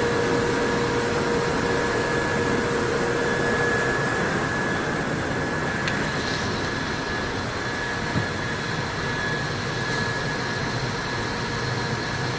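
London Underground train running, heard from inside the carriage: a steady rumble and rush with a thin steady whine. A lower whine fades out about four seconds in.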